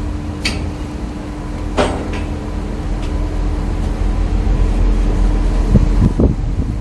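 Steady low rumble with a constant hum, broken by a few sharp metal clicks and knocks about half a second and two seconds in, and again near the end, as the steel roof bows of an open-top shipping container are handled.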